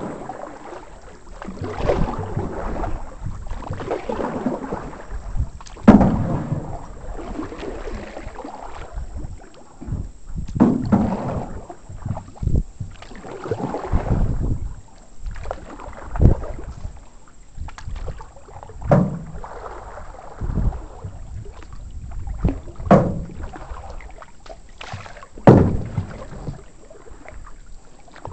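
Canoe paddles dipping and pulling through the water, a stroke every two to four seconds, with splashing and a few sharp knocks among them.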